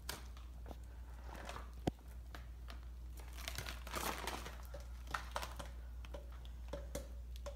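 Old, yellowed newspaper being handled and unfolded, crinkling and rustling, most densely about halfway through. One sharp click about two seconds in.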